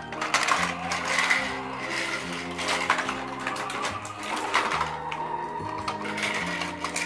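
Background music of held organ-like notes changing about once a second, over a busy rattling clatter of plastic toy monster trucks being pushed and handled on a rug.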